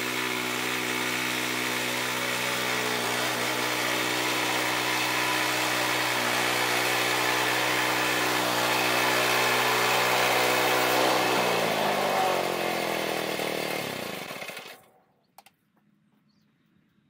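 Gas engine of a Woodland Mills portable bandsaw sawmill running steadily, then slowing down over about three seconds and stopping as it is shut off. A single small click follows in the quiet.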